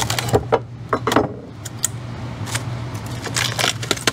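Cured fiberglass laminate being pried and worked free of a taped wooden mold with a metal scraper: scattered sharp clicks and crackles, bunched in the first second and again near the end. A steady low hum runs underneath.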